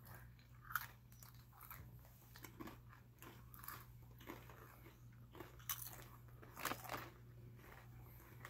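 Faint crunching and chewing of Fritos Scoops corn chips dipped in cheese dip: irregular crisp crunches about once a second, over a steady low hum.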